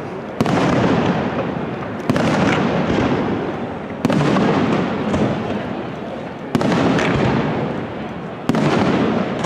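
Aerial firework shells bursting: five loud bangs about two seconds apart, each followed by a long rumbling tail that fades away before the next.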